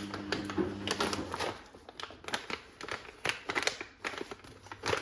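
Irregular clicks and light taps of small objects being handled. Under them a steady electrical hum stops about a second and a half in.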